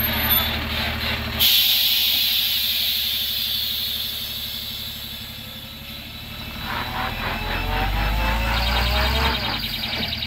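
Loaded 16-tyre Tata truck's diesel engine running, with a sudden loud hiss of released air about a second and a half in that fades away over the next few seconds. Near the end the engine revs up under load, its pitch rising, as the truck pulls round the hairpin.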